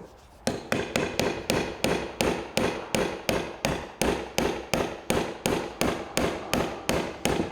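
Hammer striking the fuel tank sender unit's retaining ring to knock it round, in a steady run of about two dozen sharp metallic strikes. The rusted ring is not loosening.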